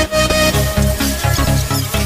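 Background electronic dance music with a steady beat.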